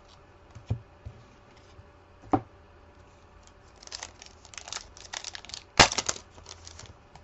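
Two sharp taps, then a run of crinkling and tearing as the wrapper of a Select NRL trading card pack is torn open, peaking about six seconds in.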